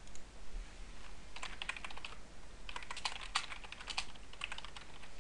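Typing on a computer keyboard: a pause of about a second and a half, then three quick runs of keystrokes.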